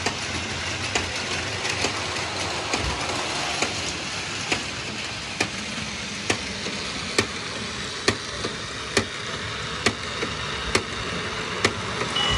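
Battery-powered Plarail toy trains running on plastic track: a steady motor whir with a sharp click about once a second.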